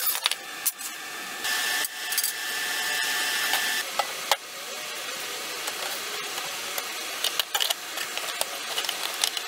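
Square steel tubing being handled at a chop-saw bench: sharp metal clanks and knocks, with a steady scraping slide of the tube along the bench a couple of seconds in.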